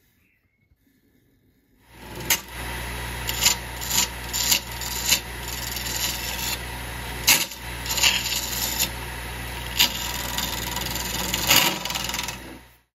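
A wood lathe starts up about two seconds in and spins a bamboo, coloured-pencil and epoxy resin vase while its surface is sanded by hand. A steady motor hum sits under a rough rubbing hiss, with sharper scrapes now and then, and it all stops just before the end.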